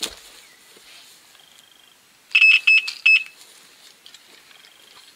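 Electronic carp bite alarm sounding a quick burst of about five high beeps a little over two seconds in, the signal of a fish taking line. A sharp click comes at the very start.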